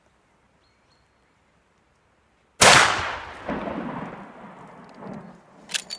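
A single gunshot about two and a half seconds in, loud and sharp, with a long rolling echo that dies away over about three seconds. Near the end comes a sharp click.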